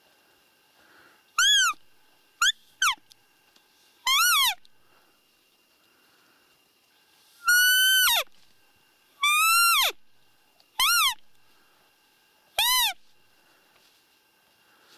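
Roe deer fiep calls, most likely blown on a hunter's roe call to imitate a doe in the rut: eight short, high, squeaky whistles, each rising then falling in pitch, spaced irregularly from about a second and a half in.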